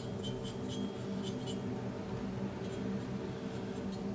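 Small brush dabbing and scraping Sif brazing flux paste onto an exhaust pipe collar: a quick run of short scratchy taps in the first second and a half, then a few more near the end.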